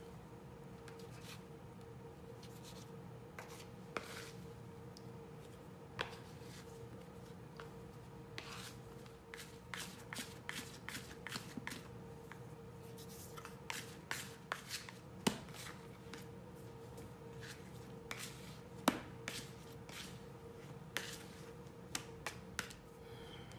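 Plastic bench scraper tapping and scraping on a granite countertop, with hands working soft bread dough as it is cut in two and rounded into balls: scattered clicks and soft taps, busier in stretches, with a few sharper knocks. A faint steady hum runs underneath.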